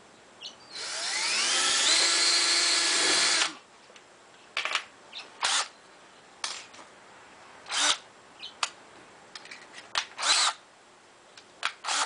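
Cordless drill spinning up with a rising whine and running steadily for about three seconds as it drills a small pilot hole, then stopping suddenly. Several short trigger blips follow as the keyless chuck is run to change the bit.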